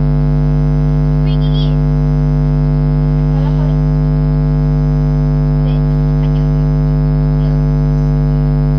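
Loud, steady electrical hum: a low buzz with many even overtones that does not change at all, with faint short sounds barely showing beneath it.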